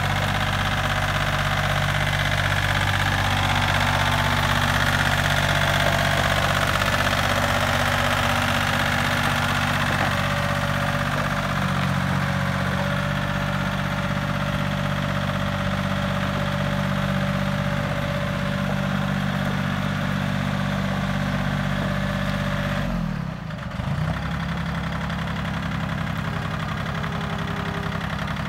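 Case IH 1130 compact tractor's engine running steadily as the tractor is driven; about three-quarters of the way through the engine note briefly drops and then picks up again.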